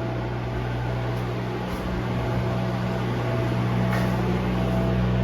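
Haas VF2 CNC vertical milling machine powered up and idling, giving off a steady electrical hum with fan noise.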